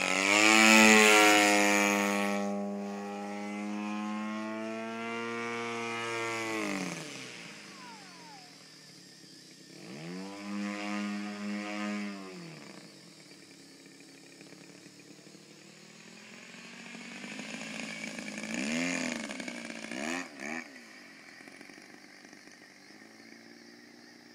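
Two-stroke gas engine of a radio-controlled Yak-55 aerobatic plane flying 3D manoeuvres: loud at high throttle for the first several seconds, dropping to low throttle, opening up again briefly about ten seconds in, then a few quick blips with the pitch swooping up and down near the end.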